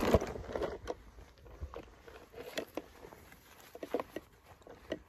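Footsteps and rustling through grass and dry undergrowth: irregular soft crunches and snaps, denser at the start and then scattered.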